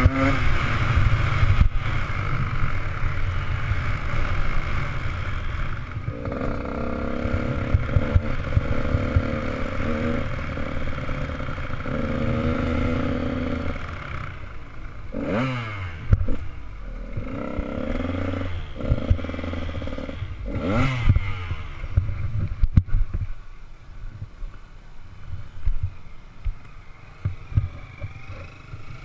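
Motocross bike engine heard from the rider's helmet camera, running at low revs as the bike rolls slowly, with two short throttle blips around the middle, then dropping toward idle near the end. Wind rumble and rattles from the bike run underneath.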